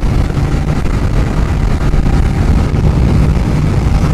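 TVS Apache RTR 160's single-cylinder engine running flat out near the bike's top speed, at about 115–120 km/h, with wind rushing over the microphone.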